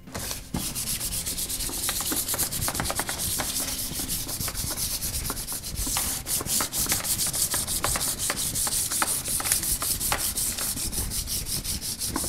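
Sandpaper rubbed by hand over the plastic body of a Power Wheels ride-on toy in quick back-and-forth strokes, scuffing the surface before it is spray painted. The scraping starts about half a second in and goes on steadily.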